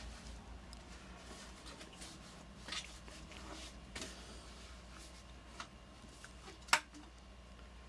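Faint, scattered clicks and light knocks of work on a water heater installation, over a steady low hum, with one sharper click about two-thirds of the way through.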